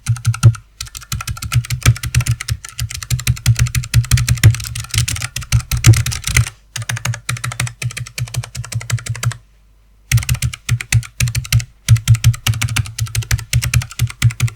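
Fast typing on a Keychron K1SE low-profile mechanical keyboard with clicky blue optical switches: a dense stream of key clicks, with a brief pause about two-thirds of the way through.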